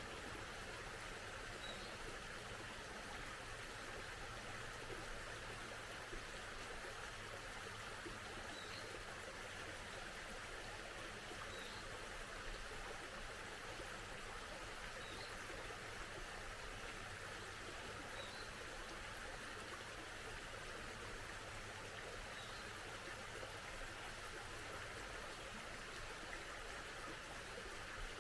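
A stream running steadily, with a single bird giving a short, high chirp every few seconds.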